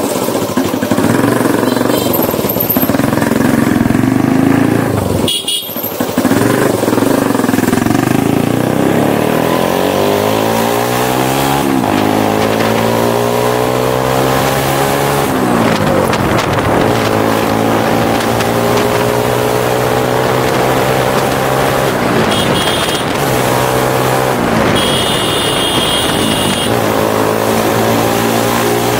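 Motorcycle engine under hard acceleration, climbing in pitch and dropping back twice at gear changes, then running at a steady speed.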